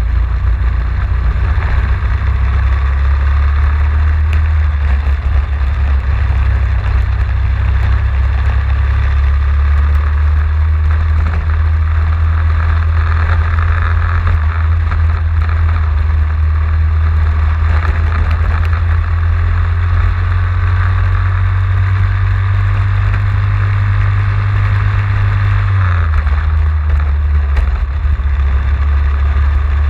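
Racing kart engine running hard on a lap, heard close up from the kart itself with steady wind and road noise over it. Near the end the engine note drops a little.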